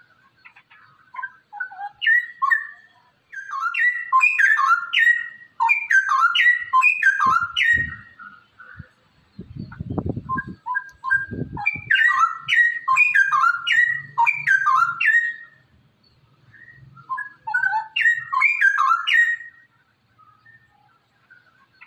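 Straw-headed bulbul (cucak rowo) singing: loud, rich whistled warbling phrases in three bursts of several seconds each, separated by short pauses. A few low thuds come about halfway through.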